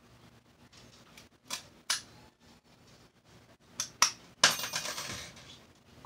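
Slim metal lock-picking tools clicking against a wooden tabletop: a few light taps, then about four and a half seconds in a louder clatter of metal on wood with a brief metallic ringing that dies away within a second.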